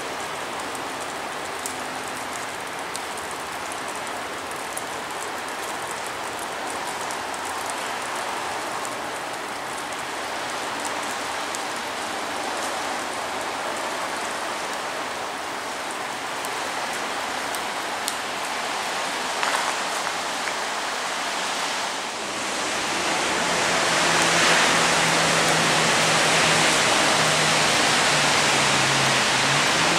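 Steady rain falling, an even hiss with scattered drops ticking close by. About 22 seconds in, the sound cuts to a louder, steadier hiss with a faint low hum underneath.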